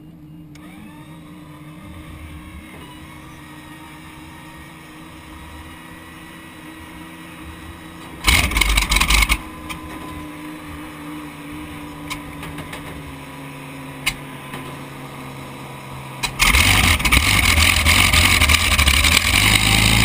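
Hydroplane's engine starting: a low hum, a loud burst of about a second around eight seconds in, then the engine catches suddenly about sixteen seconds in and keeps running loudly.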